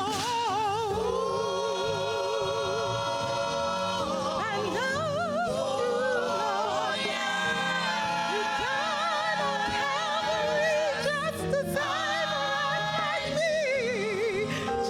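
Gospel singing in church: voices holding long notes with vibrato over a steady musical accompaniment.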